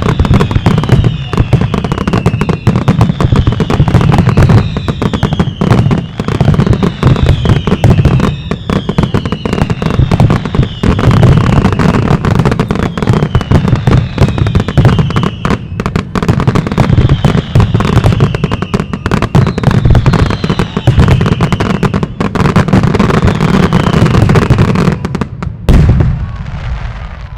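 Fireworks display in a dense, continuous barrage of bangs and crackling, with a falling whistle about once a second. The barrage stops abruptly near the end and its echo dies away.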